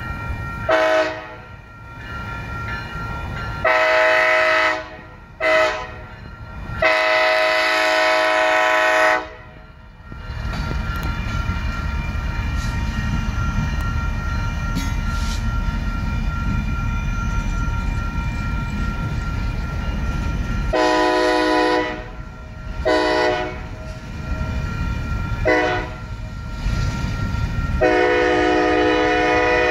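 Union Pacific diesel locomotive air horn blowing a series of blasts for a grade crossing, the fourth one long, then the heavy low rumble of the lead locomotives rolling past. About two-thirds of the way through, the horn sounds again in four more blasts, the last one long, as the coal hopper cars roll by.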